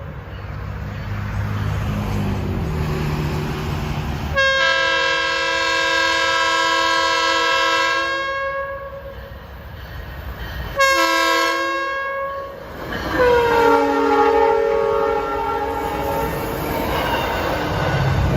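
Passenger train horn on a westbound cab car sounding the grade-crossing pattern: a long blast, a short one, then a long blast that drops in pitch as the train passes, over the rumble and clatter of the train.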